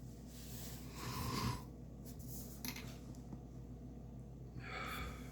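A man who is ill breathing audibly: one long, noisy breath in the first second and a half, and a shorter one near the end.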